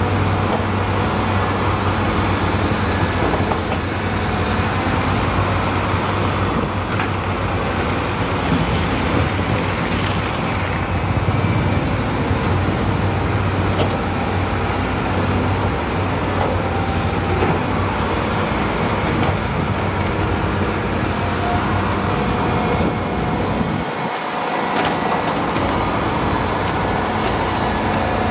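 Heavy-equipment diesel engine running steadily as an excavator loads mud into a dump truck. The low engine rumble drops out briefly about four seconds before the end.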